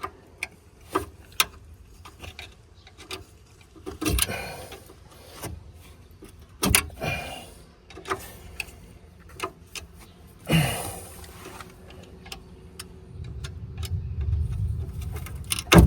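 Hand tools working on a car's stabilizer link and bushing: scattered metal clicks and taps as a screwdriver pries the seized part loose, with louder knocks about four, seven and ten seconds in. A low rumble starts near the end.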